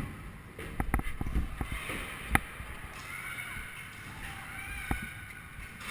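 Scooter rolling over pavement with a steady low rumble, broken by a few sharp knocks, the loudest about two and a half seconds in.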